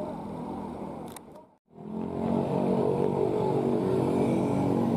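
A heavy vehicle's diesel engine running hard on a steep climb. The sound cuts out for a moment about a second and a half in, then comes back louder, with the pitch shifting slightly as the revs change.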